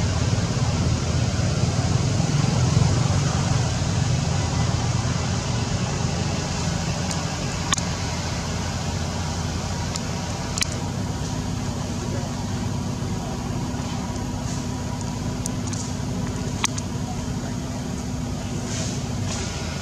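Steady low rumble and hiss of outdoor background noise, with a low hum joining about halfway through and three sharp clicks scattered through it.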